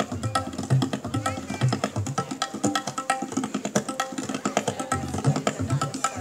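Live Indian-style music: a sitar guitar plucking a melody over a steady hand-drum rhythm, played through PA loudspeakers.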